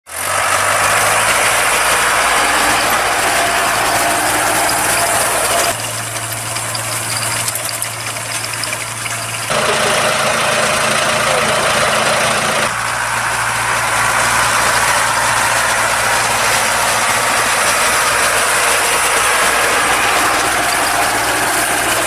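Deutz-Fahr tractors' diesel engines running steadily, with mechanical noise from the machinery. The sound changes abruptly about six, nine and a half and thirteen seconds in.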